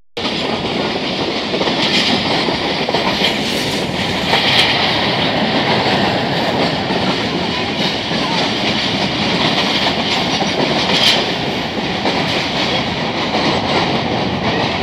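Moving train heard from inside a carriage at the window: a steady rumble and rattle of wheels running on the rails, with a few brief, sharper knocks.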